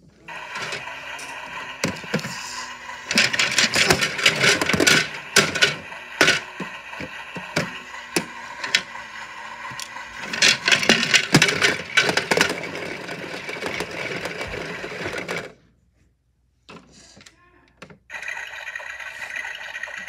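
Toy washing machine running, its small motor whining steadily while wooden Jenga blocks rattle and knock in the turning drum, with two spells of heavy clattering. It cuts out for a couple of seconds near the end, then runs again.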